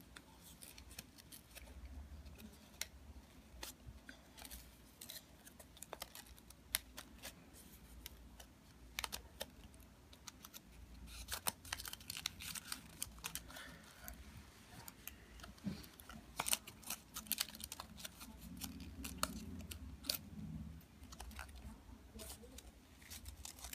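Paper being handled and folded by fingers: soft rustling and crinkling of paper strips and petals, broken by many small sharp crackles and clicks as the paper is creased.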